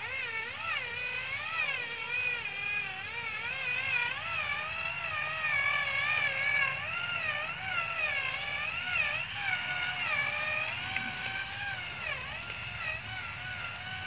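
Small electric motor and gearbox of a radio-controlled model truck whining, the pitch rising and falling continually as the throttle is worked.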